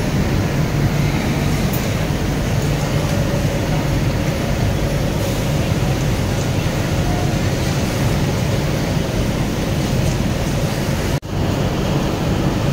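Jack 58450B double-needle industrial sewing machine running steadily at speed, a dense mechanical whir with a low hum. The sound drops out for a split second about 11 seconds in.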